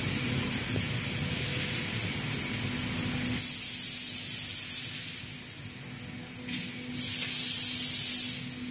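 Compressed-air hiss from the robot's vacuum suction-cup gripper, switching on and off sharply. A long burst comes about three seconds in, then a short puff, then another long burst near the end. A steady low machine hum runs underneath.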